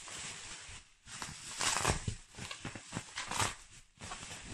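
Rustling and crinkling of packaging as items are pulled out of a parcel box, in irregular bursts with a short lull about a second in.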